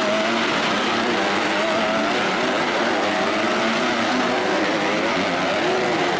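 Several MX1 motocross bikes racing on a dirt track, their engines revving up and down in overlapping waves.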